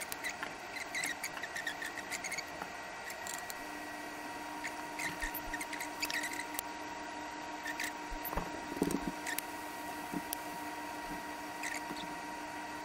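A heat gun runs with a steady whine while heat-shrink solder connectors are shrunk onto an LED's leads. Small squeaky chirps and light handling clicks sound over it, with a louder thump about two-thirds of the way through.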